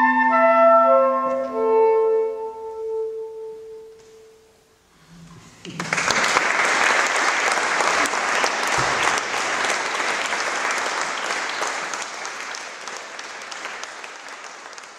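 Two soprano saxophones play their closing held notes, which ring on in the church's reverberation and die away. After a short pause an audience breaks into applause about six seconds in, which slowly fades.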